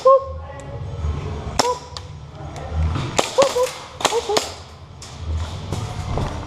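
Airsoft guns firing scattered single shots, a sharp snap about every half second to second in two clusters, some with a brief ringing ping as BBs strike hard surfaces.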